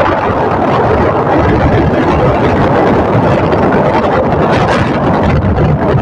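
Loud, steady rumbling wind noise buffeting the microphone, with no clear engine note.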